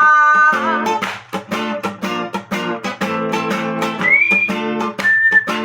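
Music: an acoustic guitar strummed in a steady rhythm. A held sung note trails off at the start, and a few high single-pitched melody notes come in near the end.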